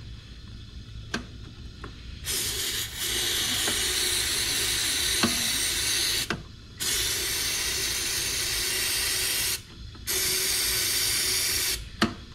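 An aerosol can of starting fluid is sprayed into a car engine's air intake as three long hisses of about four, three and two seconds, the first beginning about two seconds in. The fluid is a no-start test, checking whether a cranking engine that won't fire is short of fuel.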